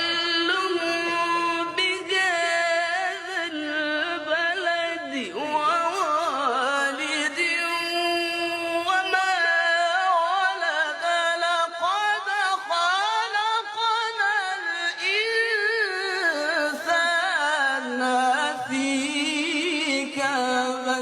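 Unaccompanied devotional vocal chanting in a Middle Eastern melismatic style: long wavering notes with heavy ornamentation, several layered voice lines, and no instruments. It cuts off suddenly at the end.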